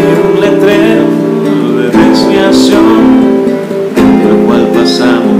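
Nylon-string classical guitar strumming chords, a new chord struck about every two seconds and left ringing. The progression is reharmonised with substitute chords: the tonic replaced by its mediant, the subdominant by F and F minor, the dominant by the leading-tone chord.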